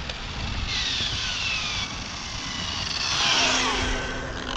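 Arrma Senton RC truck's TP 2900kv brushless motor, run on 3S through a Castle XLX controller, whining in a high-speed pass: a high whine falling in pitch about a second in, then a louder whine about three seconds in that drops steeply as the truck slows.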